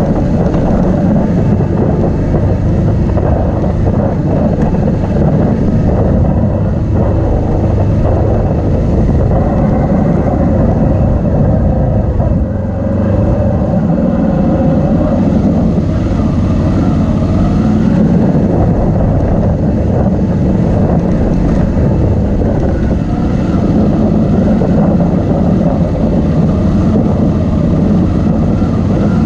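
Motorcycle engine running steadily as the bike rides a rough dirt track, heard close up from a camera mounted on the bike. The sound dips briefly about twelve seconds in.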